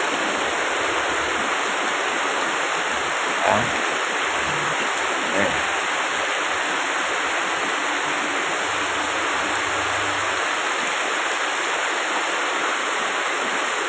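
Heavy rain pouring down, a steady dense hiss, with two brief faint sounds about three and a half and five and a half seconds in.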